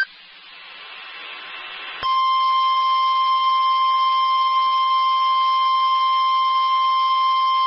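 NOAA Weather Radio broadcast: a hiss that builds for about two seconds, then the steady 1050 Hz warning alarm tone comes on abruptly and holds, the tone that signals a warning-level alert is about to be read.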